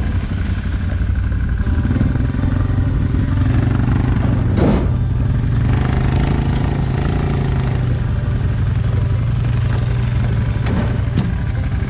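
ATV (quad) engine running steadily while hauling a trailer load of ties, with a couple of brief knocks.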